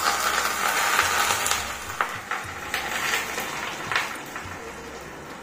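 Very hot oil poured onto garlic powder, red chillies and spring onions in a glass jar, sizzling hard; the sizzle dies down after about two seconds, leaving a softer fizz with a few sharp crackles.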